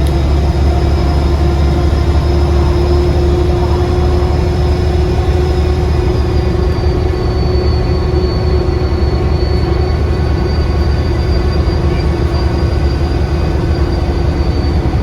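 Bus diesel engine under way, heard on board: a low engine drone with a loud, high, steady turbo whistle whose pitch drops slightly about halfway through.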